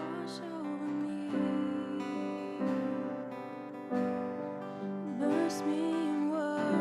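Slow worship-band music without words: acoustic guitar strumming under held chords, with a melody line that wavers and slides over the top.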